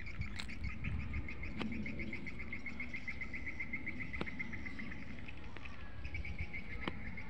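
An insect calling with a fast, even train of short high chirps, which thins out briefly about five seconds in and then picks up again, over a low rumble.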